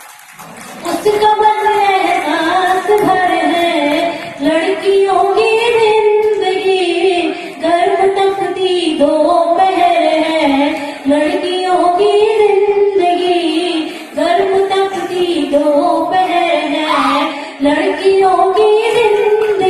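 A woman singing lines of a Hindi poem unaccompanied into a stage microphone, in long melodic phrases with short breaths between them.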